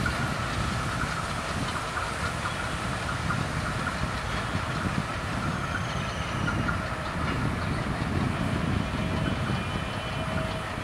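Bangladesh Railway intercity passenger train rolling away around a curve: a steady rumble of coach wheels on the rails.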